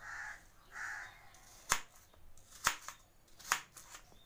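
A kitchen knife cutting apple pieces on a plate, striking the plate in three sharp taps about a second apart. In the first second two short calls of a bird are heard in the background.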